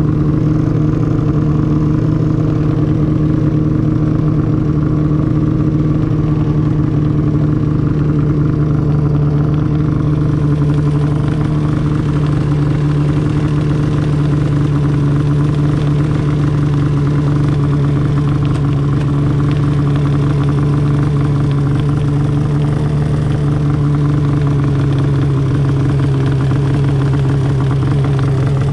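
Arctic Cat Crossfire 1000 snowmobile's two-stroke twin idling steadily through a loud GGB aftermarket exhaust can.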